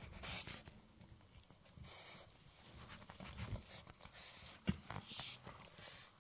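Two-month-old poodle puppy chewing and gnawing a raw chicken foot: faint, irregular crunches and mouth clicks, with one sharper crack about four and a half seconds in.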